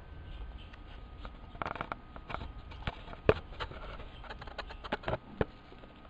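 Handling noises: a scattered string of light clicks and taps with brief rustling, the sharpest tap about three seconds in.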